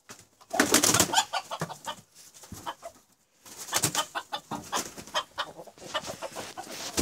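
Two roosters fighting: two bursts of rapid wing flapping and scuffling with some clucking. It is a pecking-order fight between a newly introduced young rooster and the resident cock.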